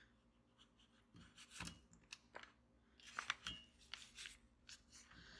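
Faint, scattered scratching and clicking, a few short scrapes and rustles a second or so apart, over near silence.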